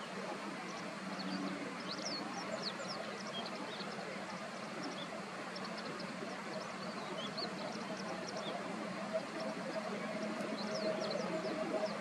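Outdoor ambience: many short, high chirps of small birds scattered throughout, over a steady low hum, with a second, higher hum coming in about two-thirds of the way through.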